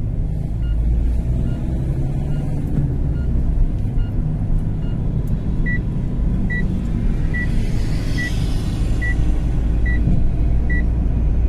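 Steady low rumble and road noise of a delivery vehicle driving along, heard from inside the cabin. A short electronic beep repeats a little faster than once a second, faint at first and clearer in the second half.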